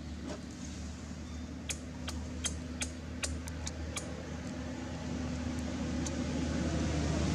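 A steady low hum, with a quick run of sharp clicks a couple of seconds in.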